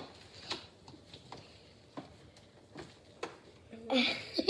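Scattered light clicks and taps of handling noise, a few a second, with a brief child's voice near the end.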